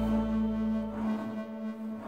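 Background music with sustained held tones fading out; its deep bass drops away about a second in, leaving a thinner held note.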